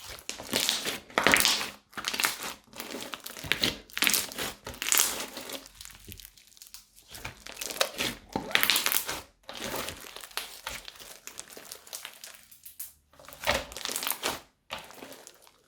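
Crunchy slime being squeezed and worked in plastic piping bags: irregular bursts of crinkling and crunching, with two short pauses.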